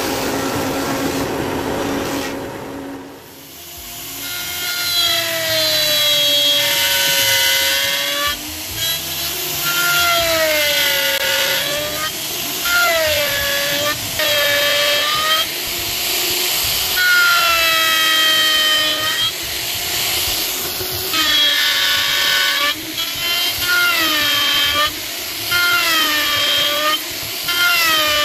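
A table saw runs steadily for about three seconds. Then an electric plunge router whines as it cuts along a wooden beam, its pitch sagging each time the bit bites under load and climbing back as it eases, over and over.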